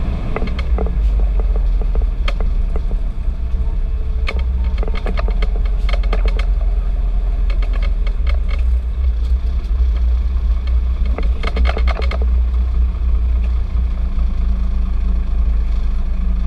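Fire engine's diesel engine running steadily, a deep, loud rumble, with scattered short clicks and rattles over it.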